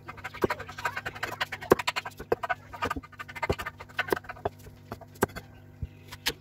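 A large knife cutting and scraping young papaya on a wooden chopping board: a string of irregular sharp clicks and scrapes as the blade hits the board and scrapes out the soft core.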